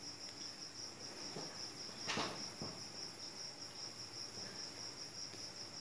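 A cricket chirping, a faint, high, evenly pulsing trill that keeps on steadily. A brief scuff is heard about two seconds in.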